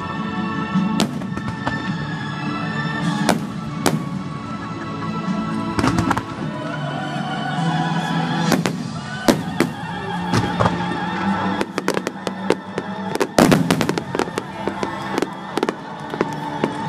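Aerial fireworks shells bursting, sharp booms every second or two with a quick run of crackling bursts near the end, over music playing throughout.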